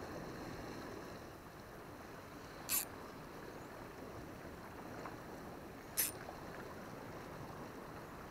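Sea water lapping against a rocky shore, a steady wash, with two short sharp hissing clicks about three seconds apart.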